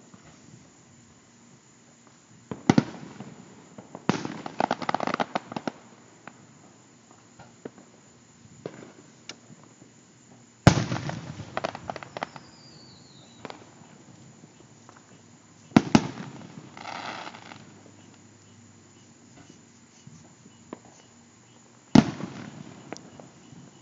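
Aerial firework shells bursting: four sharp bangs several seconds apart, each followed by a fading rumble, with a dense burst of crackling about four seconds in.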